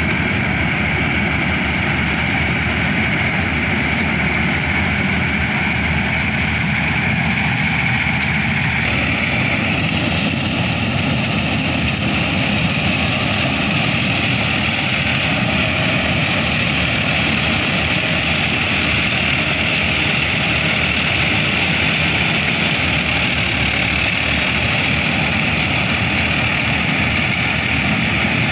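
John Deere 5055E-based combine harvester running steadily under load while cutting paddy in mud: the diesel engine and the threshing machinery. The sound shifts slightly about nine seconds in as the machine turns.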